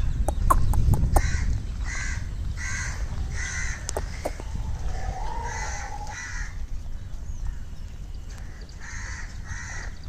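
Crows cawing: a string of short, harsh caws under a second apart, a pause, then a few more near the end. A low rumble and a few sharp knocks fill the first second.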